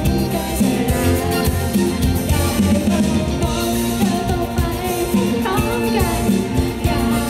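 A live pop band playing, drums and bass under the mix, with a woman singing the song into a microphone through the stage sound system.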